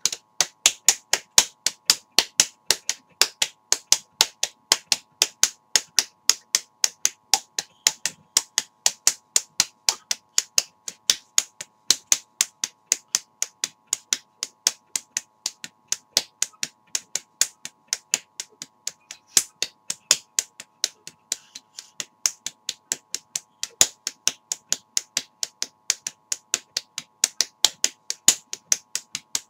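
A man slapping his own face with open hands, sharp slaps coming about four to five a second without a break.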